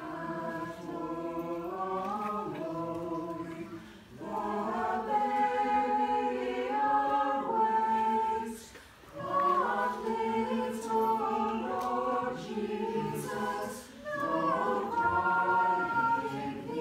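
Small mixed choir of women's and men's voices singing a Christmas carol a cappella in harmony, in phrases broken by short pauses for breath about every five seconds.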